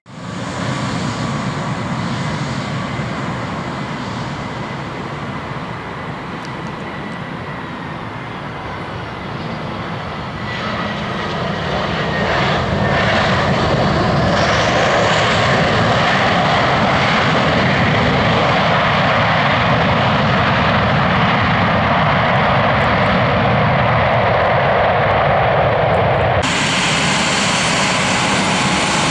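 Airbus A320's CFM56 jet engines during a landing: a steady jet rush with faint whining tones. About a third of the way in the sound grows louder and then holds there, with a sudden change in tone near the end.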